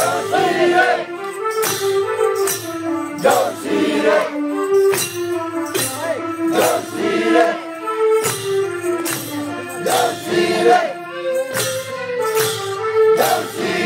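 Festive Deusi Bhailo music: group singing over a melody of held, stepping notes, with percussion striking about once a second.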